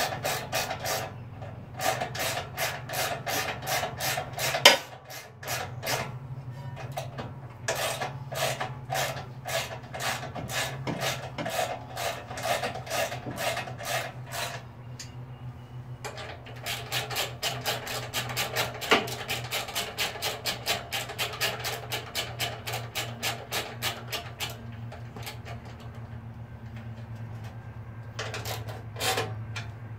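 Socket ratchet driving bolts home: runs of quick ratchet clicks, about five a second, in several bursts with short pauses, and one sharp clack about five seconds in. A steady low hum runs underneath.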